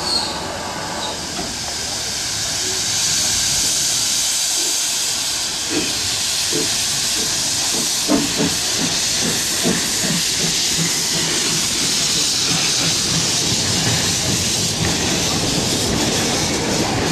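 Narrow-gauge Mallet tank steam locomotive 99 5901 pulling away with its cylinder drain cocks open: a loud, steady hiss of escaping steam. From about five seconds in, a row of regular exhaust chuffs joins it.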